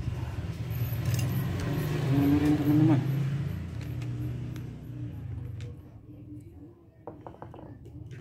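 A motor running with a steady low hum that swells to its loudest about two to three seconds in and then fades away, followed by a few light clicks and rattles near the end.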